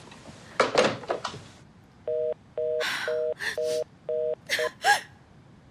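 Telephone handset sounding a repeating disconnect tone after the call is hung up. Short even beeps come about two a second, starting about two seconds in, with breathy, rustling sounds around them.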